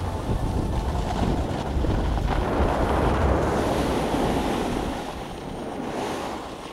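Wind rumbling on the camera microphone over the hiss of a snowboard sliding on snow, getting quieter about five seconds in.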